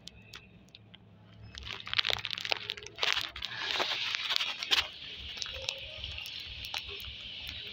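Water starting to run, with loud splashing and clatter from about a second and a half in, then settling into a steady hiss of running water.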